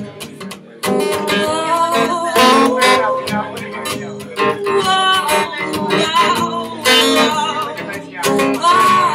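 Live acoustic guitar strummed with a singer's voice over it, a held, wavering note near the end.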